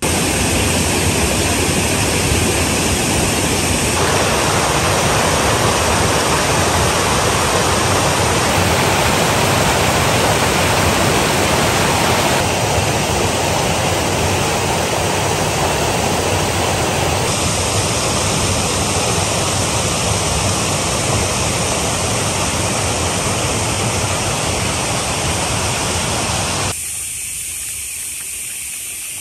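Loud, steady rush of a mountain stream's running water, its tone shifting abruptly a few times. Near the end it drops to a softer rush.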